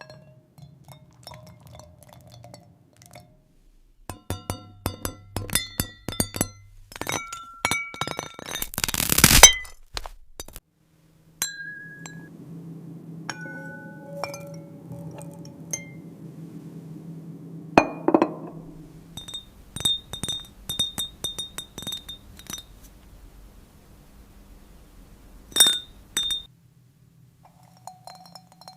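Glass clinking and tapping, AI-generated ASMR-style: many sharp clicks with short ringing tones, and a loud crunch about nine seconds in.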